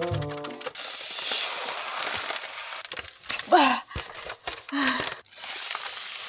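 Foil star balloons being blown up by mouth: stretches of breathy blowing with the thin foil crinkling, broken by a few short gasping breaths.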